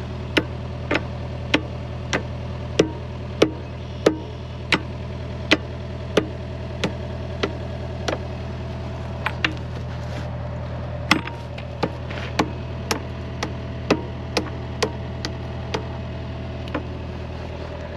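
Hammer blows ringing on steel, about one and a half a second with a short pause midway, driving a loose excavator bucket tooth pin back into the bucket. The pins keep working out on this bucket. An engine idles steadily underneath.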